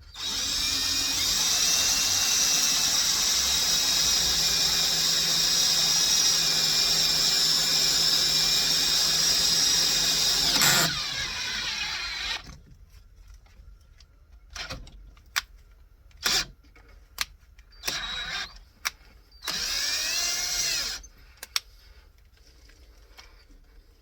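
Power drill running steadily as it drills a hole, for about ten seconds, then stopping with a sharp click. Several light clicks and knocks follow, then a second short run of the drill lasting about a second and a half near the end.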